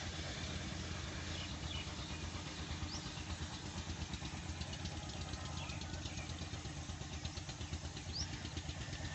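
An engine running steadily at idle, with a constant low drone. A few short, high bird chirps sound over it.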